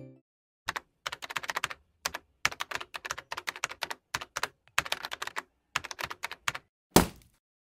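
Keyboard typing sound effect: quick runs of key clicks in bursts over about six seconds, then one louder thump near the end.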